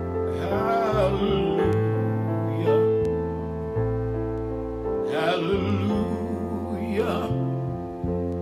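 A man sings four drawn-out phrases with vibrato over piano chords and a deep bass line, in a slow ballad.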